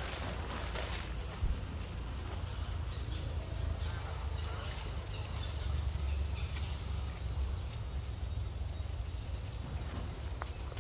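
Insects chirring steadily in a high, rapidly pulsing trill, over a low rumble. A couple of short clicks come near the start.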